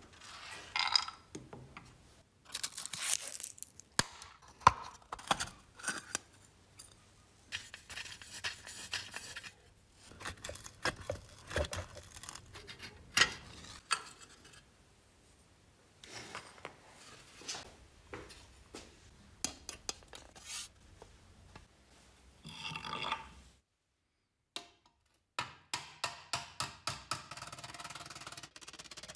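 Scraping, clinks and small knocks as metal parts of a Moskvich pedal car are scrubbed and taken apart on a wooden workbench. Near the end, after a short silence, a hammer strikes a sheet-metal part on an anvil, about four blows a second.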